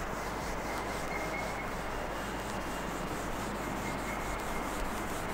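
Felt chalkboard duster rubbing across a blackboard, erasing chalk writing in repeated strokes over a steady background hiss.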